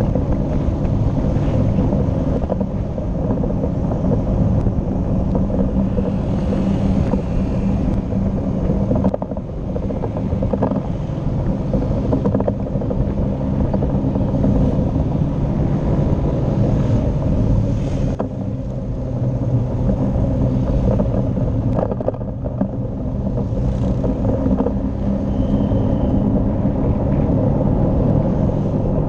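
Motorcycle engine running steadily at road speed, with a low engine hum and road and wind noise that dip and swell slightly as it rides.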